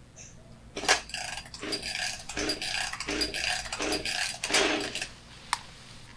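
Husqvarna 261 two-stroke chainsaw being pull-started: the recoil starter is yanked about six or seven times in quick succession, each pull a rattling turn-over burst, with a sharp click near the end. The freshly rebuilt engine is not catching, which is the hard starting it shows after sitting unused for a long time.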